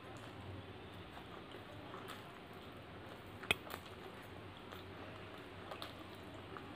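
Eating by hand: chewing mouthfuls of mutton curry and fried rice, with soft wet mouth and hand noises. A single sharp click comes about halfway through, and a few small ticks near the end.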